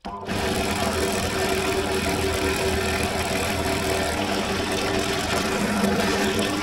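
Bench drill press motor running steadily with an even hum while a fine bit drills stitching holes through a leather sheath face.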